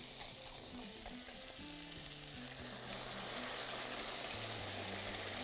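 Hot frying pan sizzling as thick demi-glace sauce is poured in over seared chicken breasts and melting butter. The sizzle grows louder about three seconds in as the sauce hits the hot pan.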